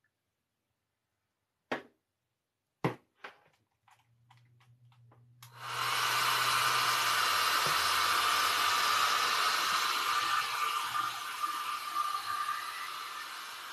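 Two clicks and some handling taps, then a handheld hair dryer switched on about five seconds in and blowing steadily over a wet acrylic pour painting, easing a little near the end.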